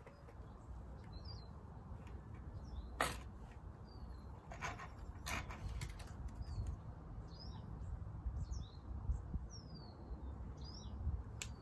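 Small birds chirping in short sweeping calls, on and off throughout. A few sharp clicks and taps of hands handling the model plane and fuel syringe stand out, the loudest about three seconds in, over a steady low rumble.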